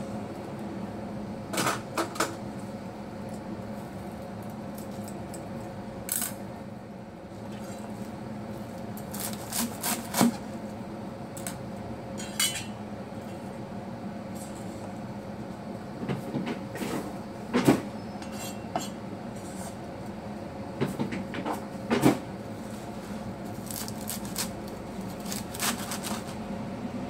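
Cleaver chopping watercress on a plastic cutting board: scattered sharp knocks of the blade striking the board, single and in short runs, over a steady hum.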